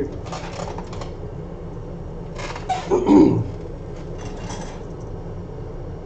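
Hands handling tools and parts at a repair bench: short rustling, scraping bursts about a quarter second in, around three seconds in and again near four and a half seconds, the middle one loudest, over a steady low hum.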